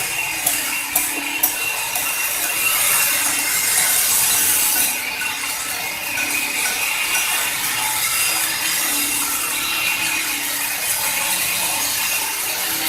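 CNC stone carving machine at work, its spindle cutter grinding into stone: a steady scraping hiss with a constant high whine, and a few sharp clicks in the first second and a half.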